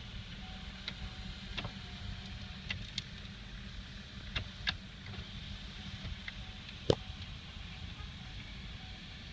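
A car's engine and cabin noise heard from inside the car as it rolls slowly: a steady low rumble, with scattered sharp clicks and one louder click about seven seconds in.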